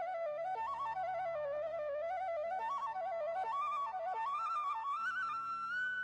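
Instrumental background music: one ornamented, flute-like melody line wanders up and down over a low steady drone, then settles on a held higher note near the end.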